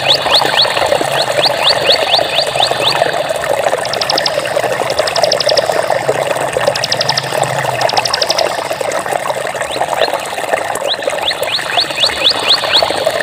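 Water flowing steadily, like a stream, with runs of quick, high chirps from a small animal. The chirps come in series at the start, in short rapid bursts in the middle and again near the end.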